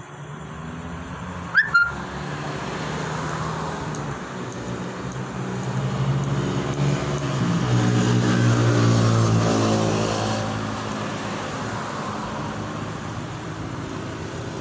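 A road vehicle's engine passing by, growing louder to a peak about eight to nine seconds in and then fading. Just under two seconds in there is a brief, sharp chirp with a rising pitch, the loudest moment.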